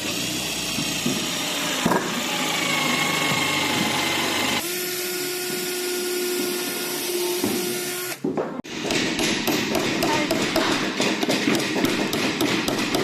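Woodworking tool sounds in quick cuts: an electric drill running with a steady whine for a few seconds, then a long run of rapid sharp knocks on wood from tool work.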